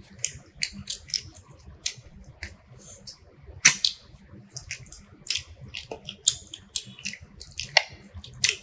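Irregular sharp clicks and taps, a few a second, with a louder snap about three and a half seconds in.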